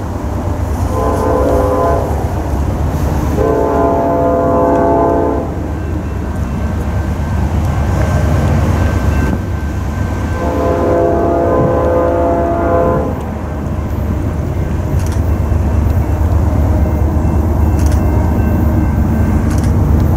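Norfolk Southern diesel freight locomotive sounding its air horn, a chord of several notes, for a grade crossing as it approaches. A short blast comes about a second in, then two long blasts, one around four seconds in and one around eleven to thirteen seconds in, all over the steady low rumble of the oncoming train.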